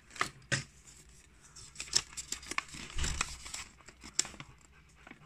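Paper and thin cardboard packaging handled, with scattered crinkles, rustles and light taps as a folded paper instruction leaflet is opened out.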